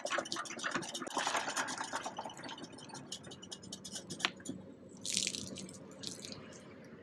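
Avalon Bay EcoSpin hand-pumped spin dryer spinning laundry: a fast run of clicks from the pumped plunger and spinning basket, thinning out and fading as the basket coasts down. Short splashes of spun-out water come out near the end.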